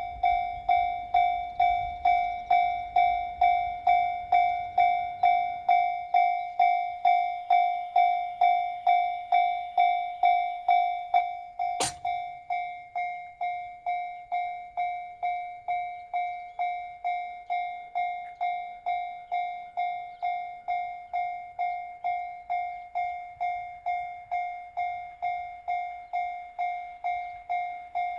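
Japanese railway level-crossing warning bell ringing steadily, about two strikes a second. A sharp click about twelve seconds in, after which the bell is a little quieter.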